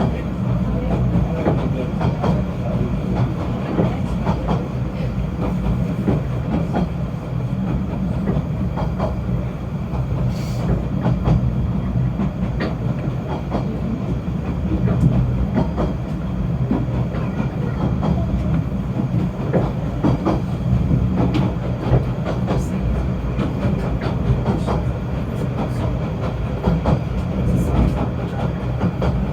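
Snowdon Mountain Railway train running: a steady low rumble with frequent clicks and rattles from the wheels and carriage.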